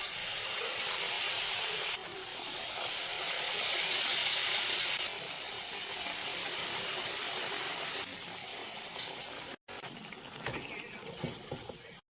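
Batter-coated banana fritters deep-frying in hot oil, a steady sizzle that changes level a few times and cuts off suddenly near the end.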